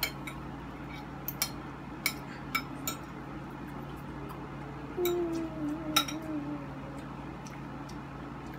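Metal forks and spoons clinking against ceramic plates during a meal: a few sharp clinks in the first three seconds and one more about six seconds in, over a steady low hum. About five seconds in, a voice hums a drawn-out note that slowly falls.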